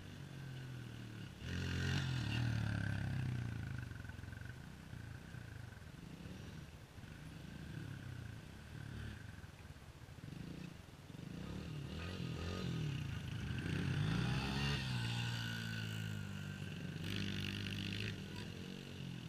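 Small dirt bike engines running and revving across the field, rising and falling in pitch. The sound jumps up about a second and a half in, with louder revving again in the middle and near the end.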